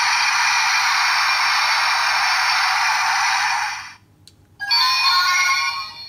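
Electronic sound effects from an Ultraman Orb Ring transformation toy's small speaker, thin with no bass: a loud rushing hiss for about four seconds, a brief break, then a short musical chime of held tones.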